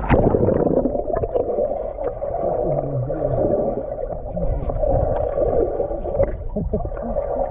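Pool water churned by a person walking and pushing and pulling his arms through it, heard with the microphone under the surface: a muffled, steady rush of moving water and bubbles. It starts with a sudden loud rush of water.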